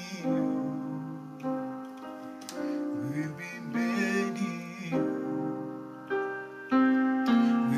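Slow keyboard music: a new chord is struck every second or so and left to ring and fade.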